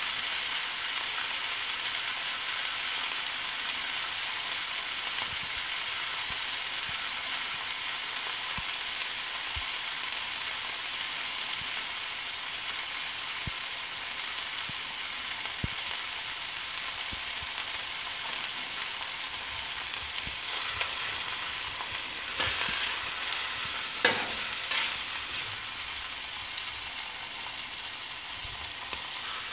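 Pork rib chops and pork neck sizzling steadily in fat on a flat stovetop griddle as they sear. In the last third a few sharp scrapes and knocks stand out, the loudest about 24 seconds in, as the meat is shifted on the plate.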